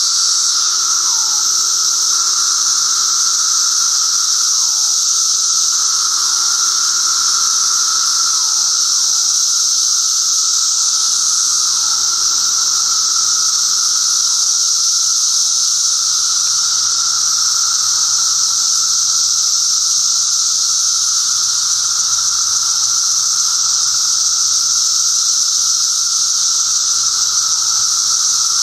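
Dense chorus of Brood XIII seventeen-year periodical cicadas: a loud, steady high-pitched drone, with lower calls that drop in pitch at their ends repeating every couple of seconds and fading out about halfway through.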